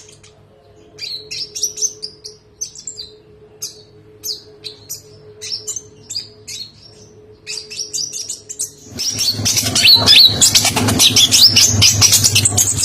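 Olive-backed sunbird (konin) singing in short bursts of high, quick chirps and twitters with pauses between. About nine seconds in the sound turns abruptly much louder, with a dense run of chirps over a noisy background.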